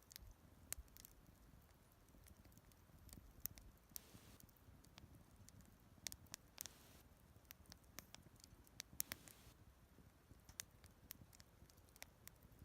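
Wood campfire crackling faintly, with irregular sharp pops and snaps over a low steady rumble.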